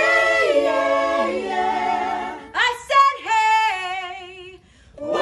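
A family group singing a cappella in close harmony: several voices hold a chord for about two seconds, then slide quickly upward into a wavering note that fades out near the end.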